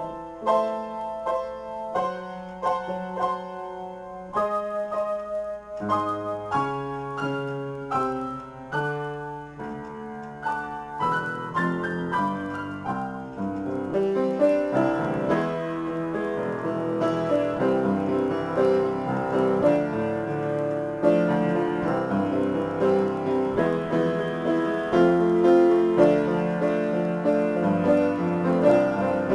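Solo upright piano improvisation: separate chords struck about once a second at first, then from about halfway a denser, louder stream of fast notes.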